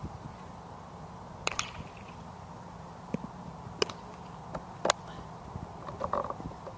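Wind buffeting an outdoor microphone, with three sharp knocks: one about a second and a half in, then two close together near four and five seconds.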